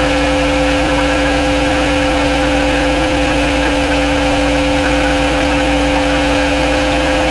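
Pressure washer running steadily, its motor and pump making a constant hum under a hiss of spray.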